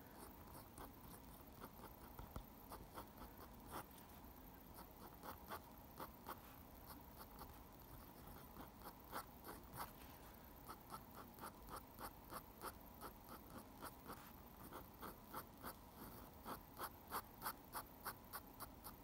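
Steel-nibbed dip pen scratching on paper in short hatching strokes, faint. The strokes are scattered at first, then come in quick runs of about two or three a second through the second half.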